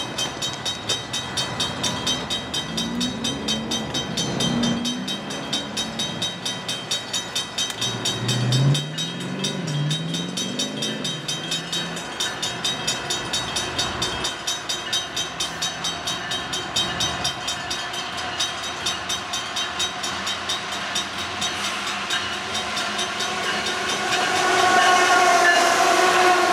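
Level-crossing warning bell ringing steadily, about two to three strokes a second, as a freight train approaches. Near the end, the GE Evolution-series diesel locomotives' engines grow louder as they reach the crossing.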